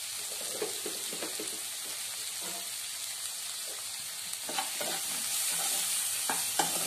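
Chopped onions, green tomatoes and green chillies sizzling steadily in hot oil in a pan. From about two-thirds through, a spatula scrapes and clicks against the pan as the mix is stirred.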